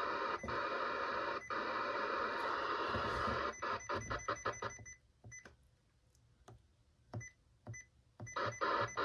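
Handheld radio scanner's speaker: a steady hiss of static, then a quick run of short chopped blips with a thin beep tone, about four a second, as it steps through channels. The blips stop for about three seconds, with only a few stray ones, then start again near the end.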